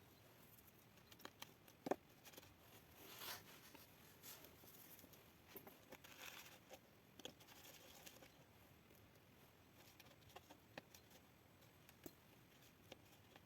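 Near silence with faint scattered clicks and taps and a couple of brief rustles; the sharpest click comes about two seconds in.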